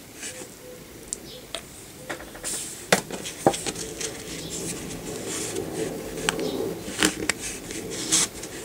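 A scraper drawn across an engraved metal nail-stamping plate, scraping excess black nail polish off the image in several rasping strokes. Sharp clicks and taps come between the strokes.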